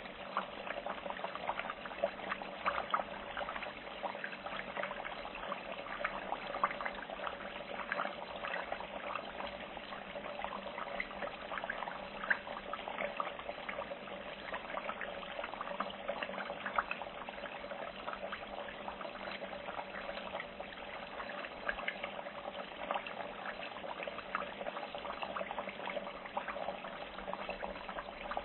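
Food frying in hot oil: a steady sizzle dotted with many small crackles and pops.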